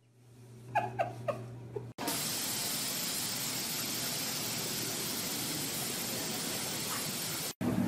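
A steady, even hiss that cuts in suddenly about two seconds in and stops abruptly just before the end. Before it, three short squeaks falling in pitch sound over a low hum.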